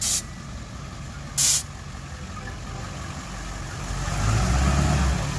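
Two short sharp hisses of released air about a second and a half apart. Then the deep engine rumble of a lifted Ford Excursion on oversized tyres swells as it drives past.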